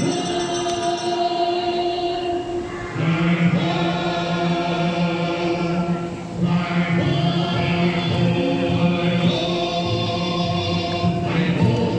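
Choral singing, with voices holding long notes in phrases a few seconds long.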